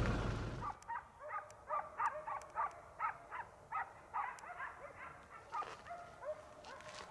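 Hunting dogs barking in the distance in quick, repeated barks, about two a second, then fainter near the end: they are baying at wild boar they have found and are holding at bay. A rustle fades out in the first second.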